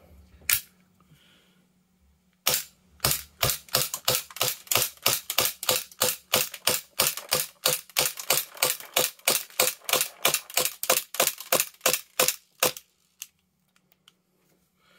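Armorer Works VX0200 gas blowback airsoft pistol, a Glock 18C copy on 144a gas, firing. One shot comes about half a second in. Then a long string of rapid sharp shots follows, roughly four a second, each with the slide cycling, until the magazine runs out about two seconds before the end.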